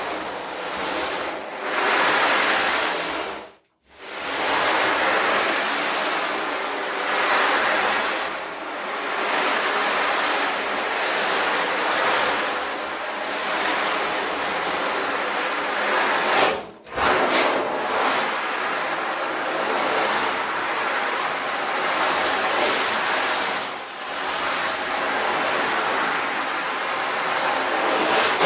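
Ocean drum tilted back and forth, its loose pellets rolling across the drumhead in a surf-like wash that swells and fades every few seconds. The wash breaks off briefly twice, a few seconds in and again past the middle, before sweeping on.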